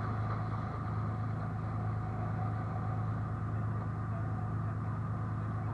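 Speedboat engine running steadily, a constant low drone with no change in pitch.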